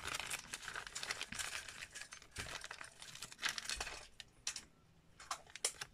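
Plastic toy packaging crinkling and rustling as it is handled by hand, with a short quiet pause and then a few light clicks near the end.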